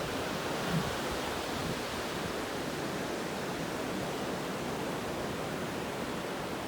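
Ocean surf washing continuously onto a beach, a steady, even rush of noise.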